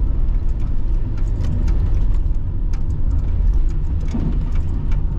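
Car interior while driving, heard from the dashboard: a steady low road-and-engine rumble at moderate speed in second gear, with scattered light ticks and rattles over it.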